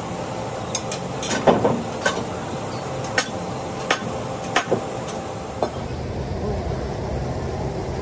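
Sharp metallic clanks and knocks at the round steel door of a Bandag tire-retreading curing chamber as workers close and seal it, about nine in the first six seconds, over a steady machine hum.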